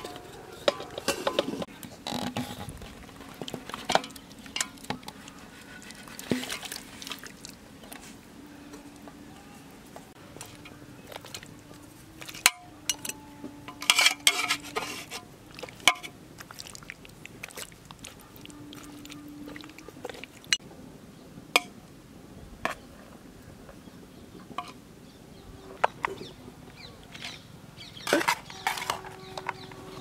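Steel cooking pot and a steel perforated ladle clinking, scraping and clattering in scattered bursts while marinated quail and rice are handled in the pot.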